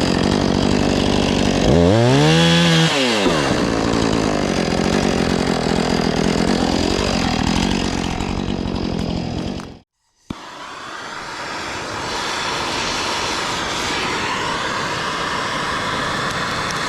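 Husqvarna 450 Rancher two-stroke chainsaw running at high speed, cutting wood; about two seconds in it revs up and back down. It cuts off suddenly near ten seconds and the saw comes back running steadily.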